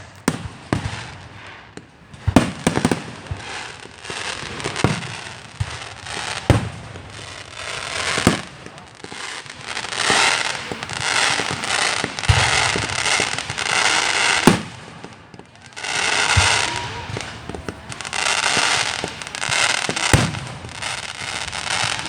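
Fireworks going off: sharp bangs at irregular intervals, with long stretches of dense crackling through the middle and latter part.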